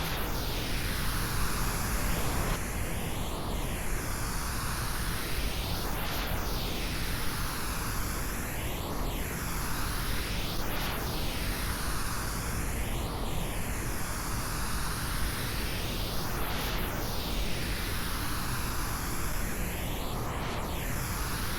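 Steady pink noise processed as 8D audio, circling around the listener's head: an even hiss with a sweeping, phaser-like colouring that comes round every few seconds.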